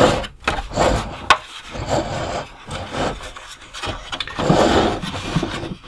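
Hard plastic toy vehicle body being handled and shifted across a tabletop: rubbing and scraping of plastic, with a few sharp plastic clicks, one about a second in.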